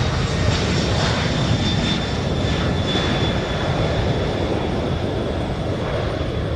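The turbofan engines of a C-5 Galaxy transport running on the ground: a steady, heavy rumble with a thin high-pitched whine above it, the shriek of the turbofans drawing in and blowing out air.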